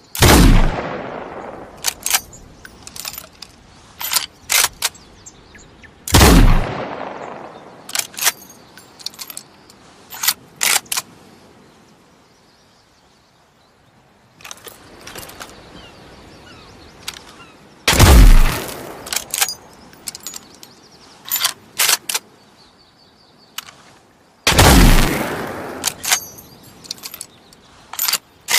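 Bolt-action rifle firing four shots, each with an echoing tail, the shots several seconds apart. After each shot comes a quick series of sharp metallic clicks as the bolt is worked to chamber the next round.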